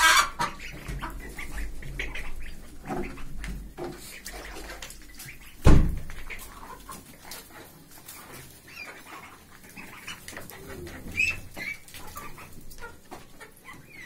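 Baladi hens clucking now and then as they crowd and peck at their food, among scattered small knocks and rustles. One loud knock about six seconds in.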